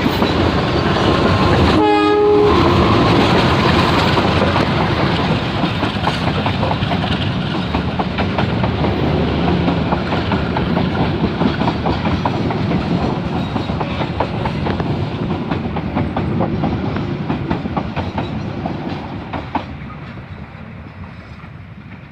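Passenger train running past close by, its wheels clattering over the rail joints in rapid clicks, with a short horn blast about two seconds in. The rumble fades steadily over the last several seconds as the train moves away.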